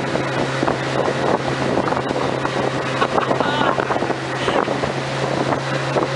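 A passenger boat's engine runs steadily under way, giving a constant low hum under a rushing wash of wind and water noise.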